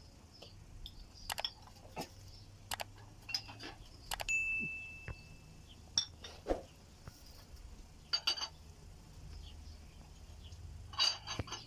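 Scattered clinks and knocks of dishes and kitchen utensils being handled, with one short ringing ding about four seconds in.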